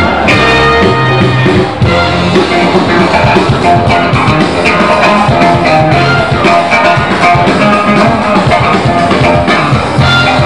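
Loud music from a DJ set, with guitar and drums, playing steadily.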